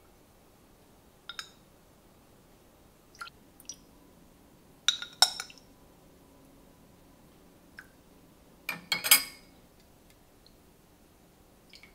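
Tableware being handled: a scattering of light clinks and knocks, with two louder clusters about five and nine seconds in.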